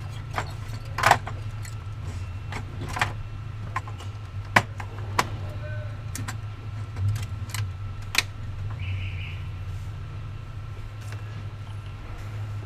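Scattered sharp clicks and small taps, irregular and a few a second at most, over a steady low hum, with one louder click about four and a half seconds in.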